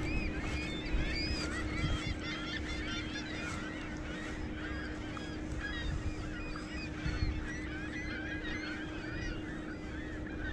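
A flock of birds calling at once, many short overlapping calls throughout, over a steady low hum.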